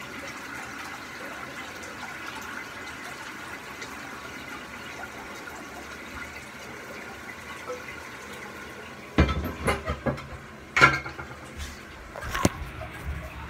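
Toilet flushing with water running steadily for about nine seconds, the bowl not going down. Then several loud knocks and bumps.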